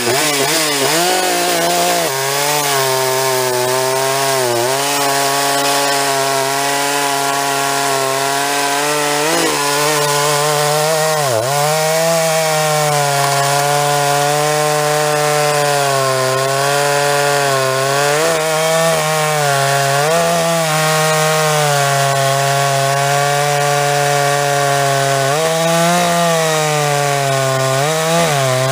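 Large Jonsered two-stroke chainsaw running at full throttle while cutting through a hardwood log. The engine's pitch dips briefly a few times as the chain bites under load, then climbs again.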